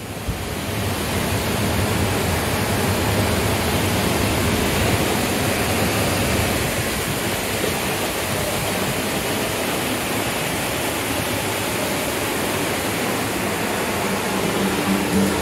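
Water rushing through a small sluice gate and over a weir in a stone-walled stream: a steady, even rushing noise that fades in over the first second.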